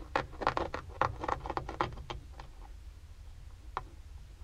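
Razor knife cutting a small hole in a car headliner: a quick run of small clicks and snips for about two seconds, then quieter, with one more click near the end.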